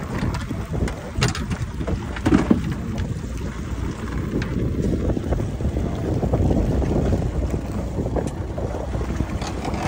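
Wind rumbling on the microphone, with a few short knocks about one and two seconds in, while crab-trap rope is hauled in over an electric pot puller's capstan.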